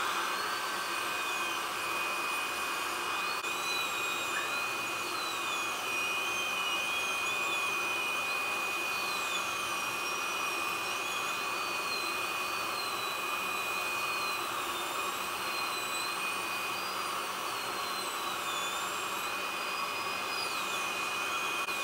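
High-speed dental air-turbine handpiece drilling into a molar: a steady hiss with a whine whose pitch wavers up and down as the bur cuts, and one fixed tone beneath it.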